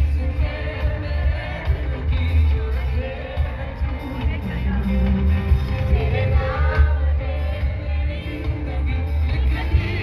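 Live pop concert music played loud over an arena PA, with a heavy bass and a male singer's voice carrying the melody, heard from within the audience.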